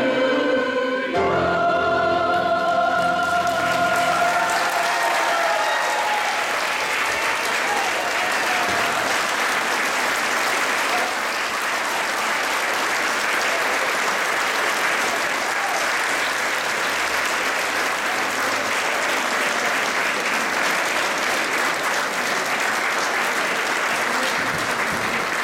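A church choir sings a final sustained chord that ends about five seconds in. Audience applause starts under the chord and carries on steadily after the singing stops.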